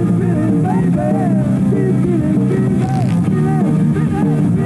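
Rock music playing loud and steady: electric guitar with a melodic line that bends and slides in pitch, which may be a singing voice.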